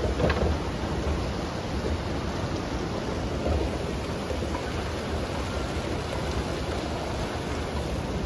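Steady rushing hiss with a low rumble: the ambient noise of a large airport terminal hall, picked up on a handheld phone carried through it, with a few faint small clicks about half a second in.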